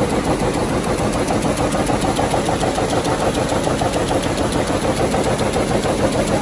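Vamatex P1001 rapier loom with a Fim dobby running: a loud, fast, even mechanical clatter, one beat per pick, over a dense steady machine din.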